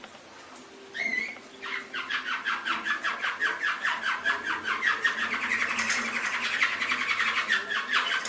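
Domestic canary singing, starting about a second in with a long, fast string of rapidly repeated notes, several a second.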